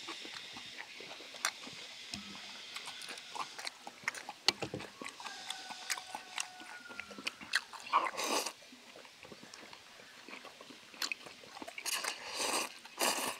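Close-up eating sounds of noodles being eaten with chopsticks: scattered small clicks and chewing, with noodle slurps about eight seconds in and again as a cluster near the end.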